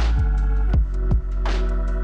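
Background electronic music with a steady beat: deep kick drums that drop in pitch and a sharp snare hit at the start and again about a second and a half in, over held synth notes.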